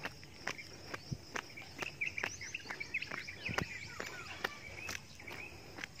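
Jogging footsteps on an asphalt road, about two steps a second, with birds chirping briefly in the middle.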